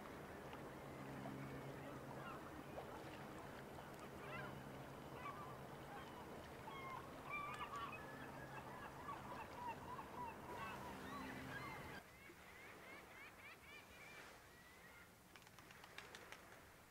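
Birds honking repeatedly, short rising and falling calls, over a low steady hum from the passing lake freighter. The hum cuts off abruptly about twelve seconds in, leaving fainter calls.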